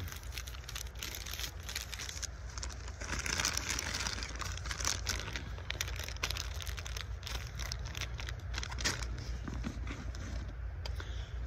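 Plastic bags and packets rustling and crinkling as gear is rummaged through, with scattered small clicks and knocks, over a steady low rumble.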